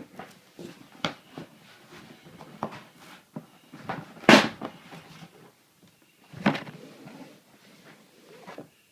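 Cardboard shoebox being handled and opened: a run of irregular knocks, scrapes and rustles, the loudest a sharp knock about four seconds in and another about six and a half seconds in.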